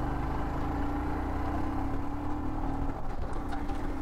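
Royal Enfield Himalayan's single-cylinder engine running steadily while riding, with a low rumble under a steady drone. The drone breaks off briefly about three seconds in, then comes back.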